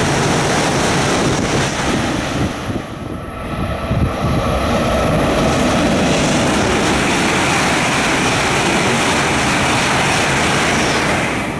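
Rushing noise of a Shinkansen train passing through the station at high speed, dying away about two and a half seconds in. After a short lull, a second Shinkansen train's rush builds from about four seconds in and holds steady as the train runs past close by.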